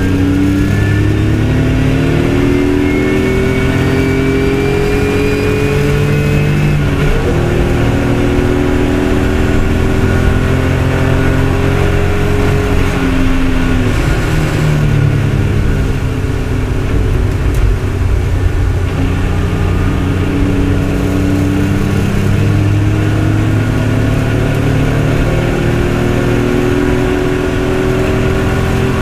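BMW saloon race car's engine heard from inside the cockpit, pulling hard with its pitch climbing through the revs. There is an upshift about seven seconds in, a second climb, and a falling pitch around the middle as the driver lifts and slows. It then accelerates again toward the end.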